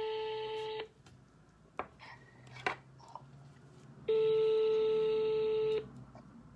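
Telephone ringback tone from a smartphone's loudspeaker while an outgoing call rings unanswered: a steady tone that ends about a second in and sounds again for under two seconds from about four seconds in. Two short clicks fall in the gap between the rings.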